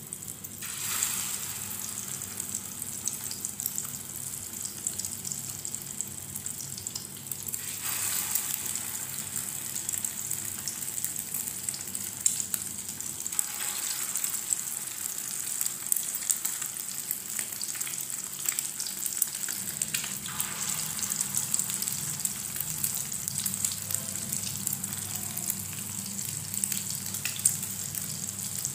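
Egg-coated chicken kababs shallow-frying in hot ghee: a steady sizzle with fine crackling and spitting. The sizzle surges louder about four times as more kababs are laid into the pan.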